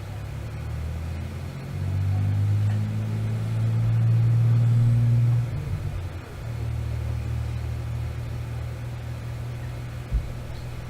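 A motor vehicle engine running with a low, steady rumble. It grows louder for a few seconds, drops back about halfway through, then holds steady. There is a single short knock near the end.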